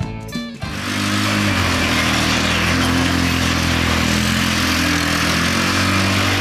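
Engine of a repowered 1969 Roof Palomino lawn-mower mini jeep running, its speed rising and falling slightly. Music cuts off about half a second in, just as the engine comes in.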